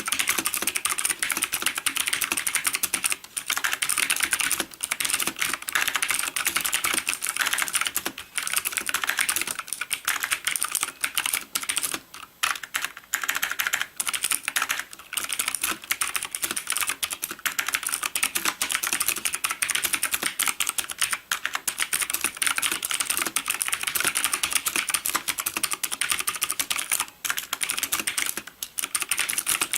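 Nixeus Moda v2 mechanical keyboard with clicky Kailh Blue switches being typed on rapidly and continuously, a dense stream of sharp key clicks with a few brief pauses.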